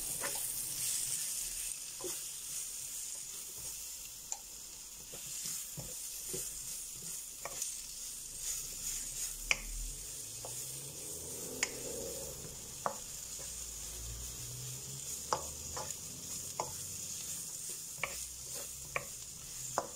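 Chopped peppers and carrots sizzling in a hot pan as they are stirred, the utensil giving short sharp taps and scrapes against the pan every second or two.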